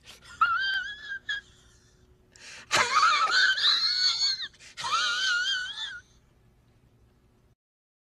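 High-pitched wheezing laugh: a few wavering, squeaky breaths, the longest and loudest about three seconds in, dying out around six seconds in.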